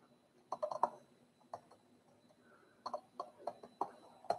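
Light clicks and taps from hands working at a desk, in short irregular runs: a cluster of about four half a second in, a single one a second later, and another run of several near the end.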